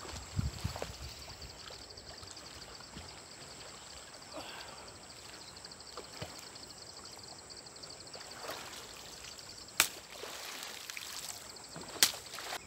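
Faint sloshing of river water as a person swims and wades through it, with a steady high-pitched buzz behind that stops shortly before the end. Two sharp knocks, one about ten seconds in and one about twelve, are the loudest sounds.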